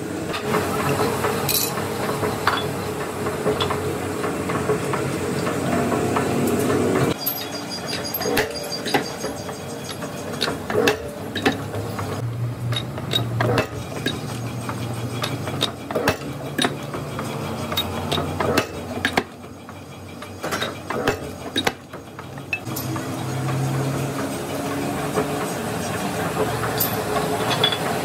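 Steel clinks and clanks as a heavy truck wheel disc is handled and clamped into a machine, with a spanner knocking on the nuts that hold it. The knocks come thick and irregular through the middle, with a steady hum at the start and again near the end.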